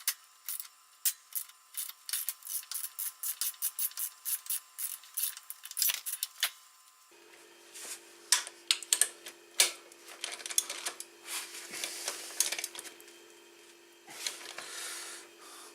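Metal hand tools working on the motorcycle's engine mount bolts: a run of quick clicks, about four a second, for roughly seven seconds, then scattered clinks and scraping.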